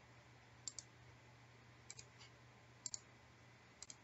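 Faint computer mouse clicks, a few short press-and-release pairs spaced about a second apart, over near silence.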